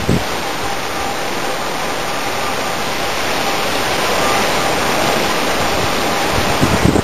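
Heavy thunderstorm downpour with strong wind: a steady, dense rush of rain, with a few low thumps near the end.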